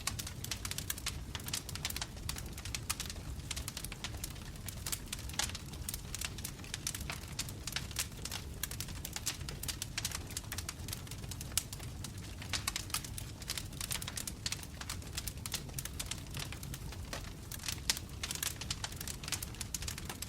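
Wood fire burning in a fireplace: dense, irregular crackling and popping of burning logs over a steady low rumble of flame.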